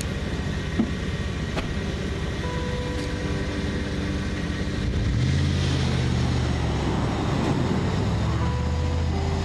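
Ford pickup truck engine running at low speed. About five seconds in, its note deepens and grows louder as the truck pulls away across the snow.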